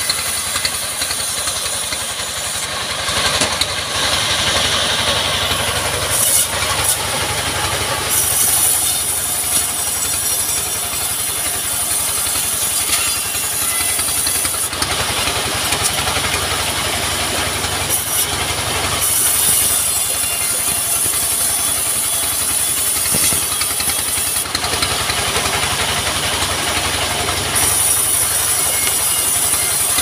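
Engine-driven band sawmill running steadily while ripping a log lengthwise: a constant engine drone under a high-pitched hiss from the blade in the wood that swells and drops back several times.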